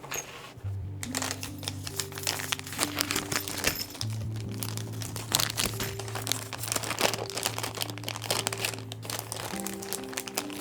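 Lo-fi background music with held bass notes, over the repeated crinkling and clicking of packaging being handled as a keyboard kit is unboxed.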